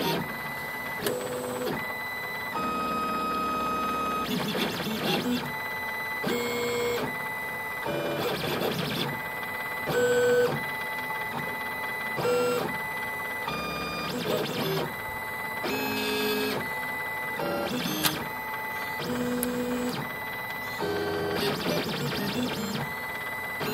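Stepper motors of a Solidoodle 3D printer converted into a pen plotter, whining as they drive the pen carriage through short straight strokes. The pitch jumps to a new steady tone with each line segment, about once a second, with small clicks at the changes.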